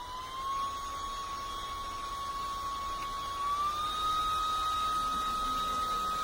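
Handheld turbo fan running: a steady high motor whine over a rush of air. The pitch steps up twice, once at the very start and again about three and a half seconds in, as the fan is switched to higher speeds.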